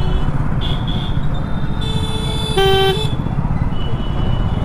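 Vehicle horns honking in town traffic over the steady low rumble of a motorcycle ride. A short toot comes about half a second in. A longer horn starts about two seconds in and lasts about a second, with a second, lower-pitched horn joining it briefly near the end.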